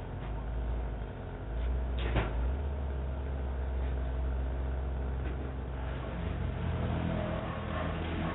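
A large engine running low and steady, heard through a doorbell camera's microphone, with a sharp click about two seconds in.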